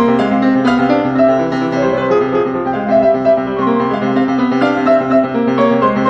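Background piano music: a melody of struck notes that ring on over held chords.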